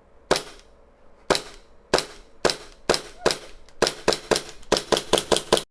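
Airsoft Hi-capa pistol firing about fourteen sharp shots. They start as single shots about a second apart and quicken into fast strings of shots near the end.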